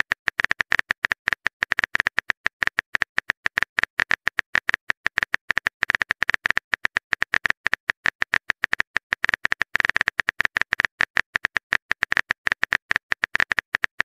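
Rapid phone-keyboard typing clicks, several short taps a second in an unbroken run, as a message is typed into a chat.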